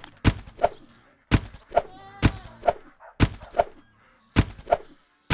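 Repeated heavy thuds in pairs, about one pair a second, each thud with a short ring, and a faint wail about two seconds in.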